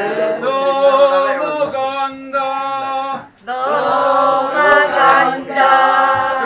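A group of people singing together, holding long notes, with a short break about three seconds in.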